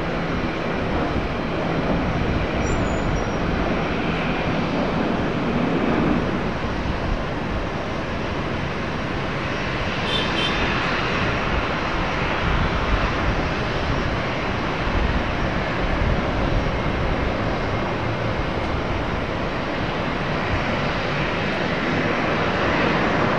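Airliner engines running at an airport: a steady, even noise without a clear pitch, a little brighter about ten seconds in and again near the end.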